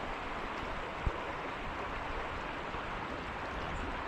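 Steady rushing of a river flowing over rocks, with one brief low thump about a second in.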